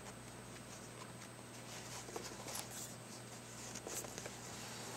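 Faint rustling and light scratching of canvas and drawstring cord being handled and fed through a metal grommet, with a few soft ticks, over a low steady hum.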